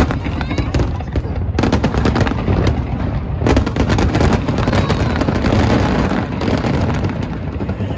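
Aerial fireworks bursting over the water in rapid succession: many bangs and crackles, with heavier volleys about one and a half seconds in and again about three and a half seconds in.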